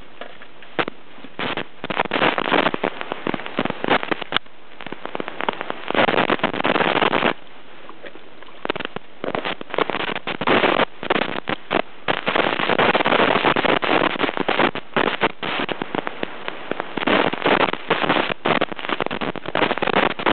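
Wind buffeting the camcorder microphone in irregular crackling gusts, loud and almost continuous, with a few short lulls.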